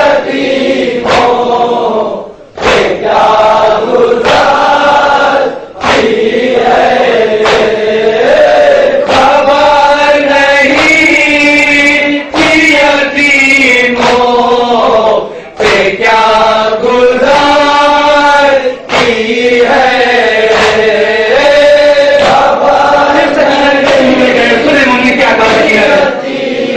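Men chanting an Urdu nauha, a Shia mourning elegy, in long held notes that waver and bend, with only brief breaks for breath.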